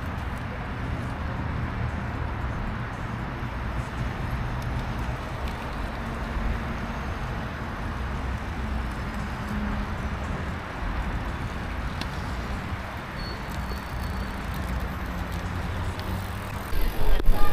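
Steady rumble of road and wind noise, as from riding or rolling traffic. It gets suddenly louder and bumpier about a second before the end.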